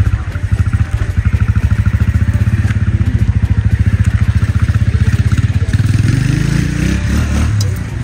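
Small motorcycle engine idling close by with a steady, rapid low pulse. About six seconds in, the pitch rises and wavers.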